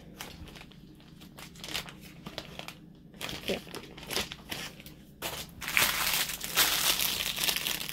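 Clear plastic packaging crinkling as it is handled: light, scattered crackles at first, then louder, continuous crinkling from about five seconds in as the plastic-wrapped tool packet is picked up.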